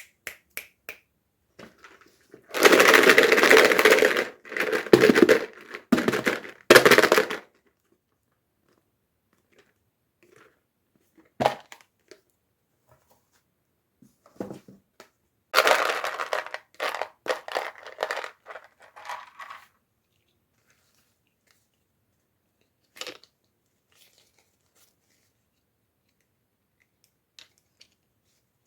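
Toy packaging being torn open and crinkled by hand, in two stretches of rustling and crackling a few seconds each, with scattered clicks and taps between.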